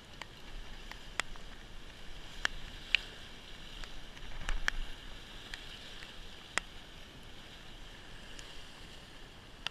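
Surf washing against the rocks below as a steady hiss, with scattered sharp clicks and taps, several in the first five seconds.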